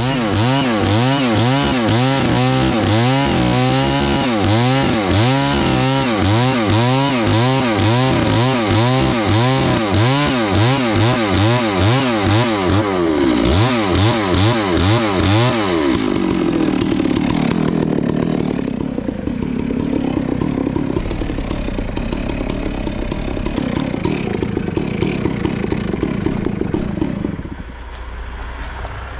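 Chainsaw ripping lengthwise down through a large standing trunk section, the engine running hard with its pitch swinging quickly and regularly up and down as the cut loads it. About sixteen seconds in it settles to a lower, steadier note, and near the end it drops away.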